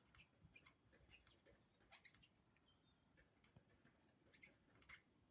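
Faint squeaks and scratches of a felt-tip marker writing on paper, in short scattered strokes.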